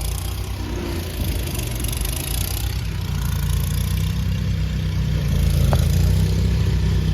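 Residential air-conditioning condenser running steadily after its failed run capacitor and contactor were replaced: a low, even hum from the compressor and fan motor, growing slightly louder toward the end.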